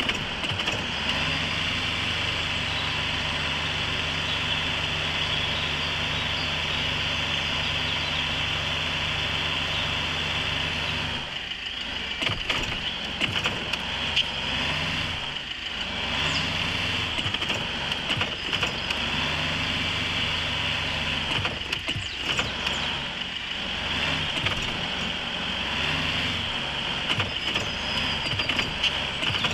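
4x4 off-road vehicle driving over rough ground. Its engine runs at a steady note for about the first ten seconds, then the note keeps changing, with scattered knocks and rattles throughout.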